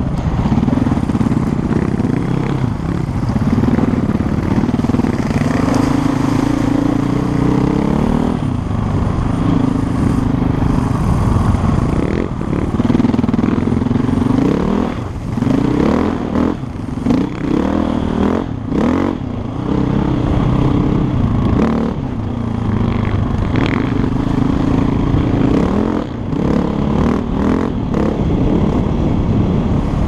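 KTM 450 EXC single-cylinder four-stroke enduro engine under way, its revs rising and falling again and again with the throttle and gear changes, with knocks and rattles from the bike over rough ground.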